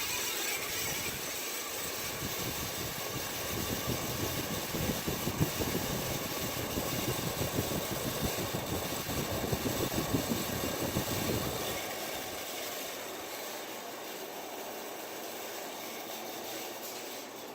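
Windmere ceiling fan motor running with a rough, rapid rattling grind: its bearings are worn out. About twelve seconds in, the deep rattle drops away and the sound becomes quieter and smoother.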